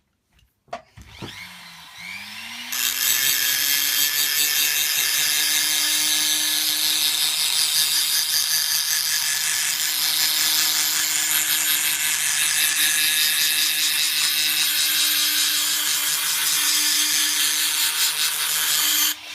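An electric sanding machine's motor spins up about a second in, then a coarse abrasive grinds steadily against the workpiece, scratching up a knife handle part so the glue will key in; the grinding stops just before the end and the motor starts to wind down.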